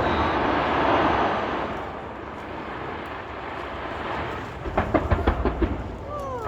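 Fireworks going off: a dense rumbling wash of bursts fades over the first couple of seconds, then a rapid run of sharp bangs and pops starts about three-quarters of the way through.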